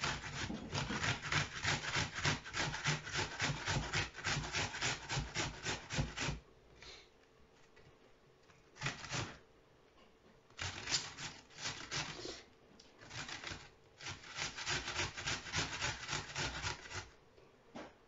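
Onion being rubbed up and down a stainless steel box grater: quick rasping strokes for about six seconds, a pause with one short burst, then more bursts of strokes that stop about a second before the end.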